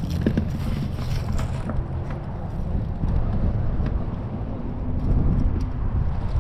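Wind buffeting the microphone: an uneven low rumble, with a short hiss in the first second or two and a few faint clicks.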